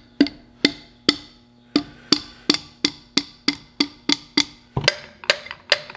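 Rubber mallet tapping a metal seal driver, about three blows a second, driving a new seal into the end of a power steering rack housing.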